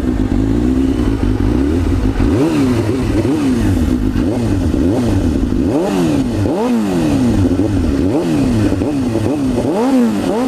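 Suzuki GSX-R 750 K4's inline four-cylinder engine idling and being revved in short throttle blips, each rising and falling back to idle, about every second or so. It breathes through an Akrapovic exhaust with the dB killer baffle removed.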